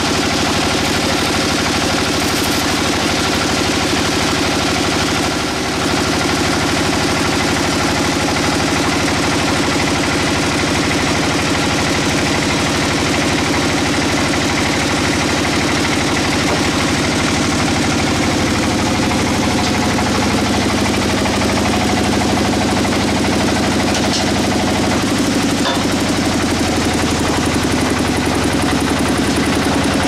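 Band sawmill running steadily, its blade sawing through a teak log.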